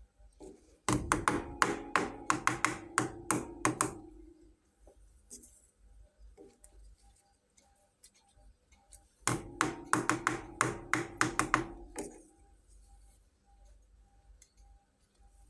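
Two runs of quick, light taps or knocks on a small hard object, about a dozen strikes in each run, each strike ringing briefly. The runs come several seconds apart.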